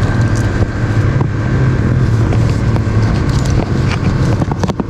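An engine running steadily, a constant low hum with a few light ticks over it.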